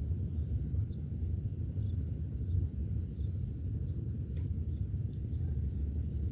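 Steady low rumble of outdoor background noise, with faint short high chirps scattered through it.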